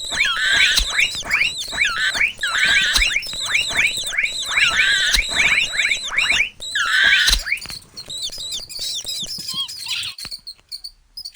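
Mouse squeak sound effects: rapid runs of short, high-pitched falling squeaks, with louder warbling squeaks about every two seconds, thinning out and fading near the end.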